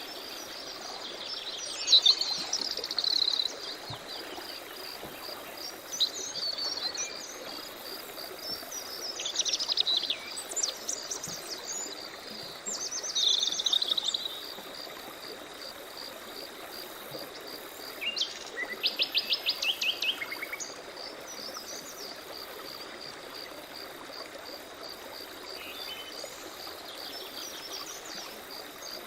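Several songbirds singing and calling in short bursts, one with a quick series of repeated notes a little past halfway, over a steady high insect trill and the hiss of a running stream.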